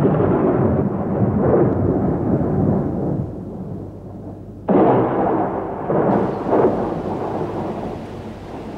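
Two claps of thunder, the first right at the start and the second about five seconds in, each breaking suddenly and then rolling away slowly. A steady hiss of rain joins in about six seconds in.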